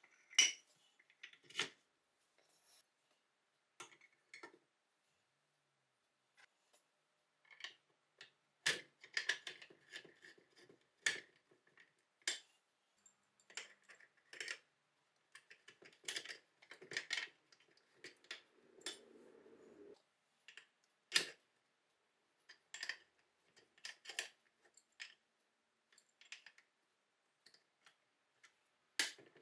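Cast-iron parts of an antique food chopper being fitted together by hand: scattered metallic clicks, clinks and light taps of the linkage and a screwdriver, with a short scraping rustle a little past the middle.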